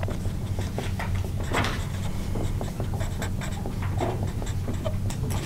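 Marker pen scratching across paper in short strokes, lettering a heading in block capitals, over a steady low hum.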